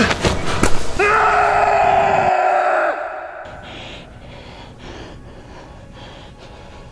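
A man's long scream, held for about two seconds from about a second in, sagging in pitch as it ends. It follows a few sharp hits, and after it the sound drops much quieter.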